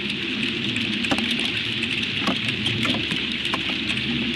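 Hail storm: a steady hiss of falling hail with frequent sharp ticks of hailstones striking.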